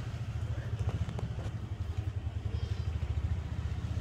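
A small motor vehicle's engine running, a low, steady, fast-pulsing rumble, with a few light clicks about a second in.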